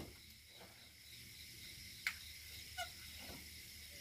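Quiet room tone: a faint steady hiss, with one light click about two seconds in.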